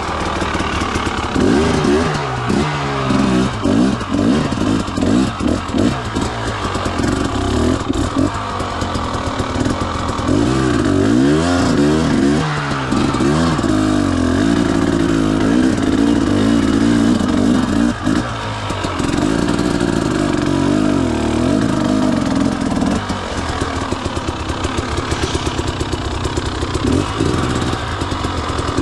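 Dirt bike engine revving up and down over and over as it is ridden, with a couple of longer steady pulls in the middle and lower, gentler running near the end.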